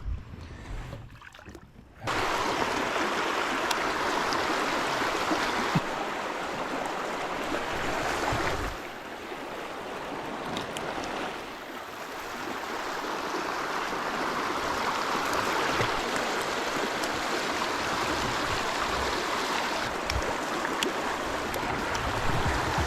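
River water rushing steadily in the current. The rush comes in abruptly about two seconds in and holds steady after that.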